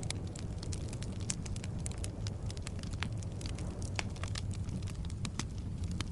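Logs burning in a fireplace: a steady low rumble of flames with frequent sharp, irregular wood crackles and pops.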